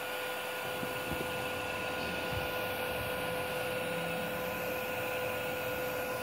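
Steady whir of a switched-on inverter welding machine standing idle, its cooling fan running as an even hiss under a constant hum.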